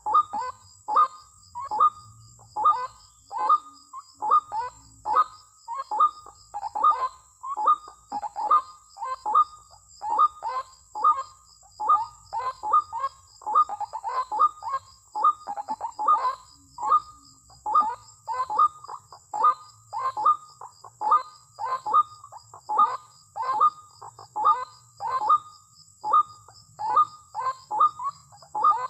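White-breasted waterhen's harsh 'ruak-ruak' call repeated without pause, short loud notes about one and a half a second, often in pairs. It is the female call used as a lure (pikat) to draw in males. A steady high hiss runs underneath.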